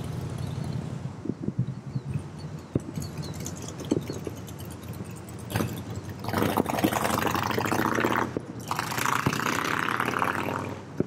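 Distant aerial fireworks going off: scattered dull pops and thuds, with a broad rushing hiss that swells up about halfway through and lasts several seconds.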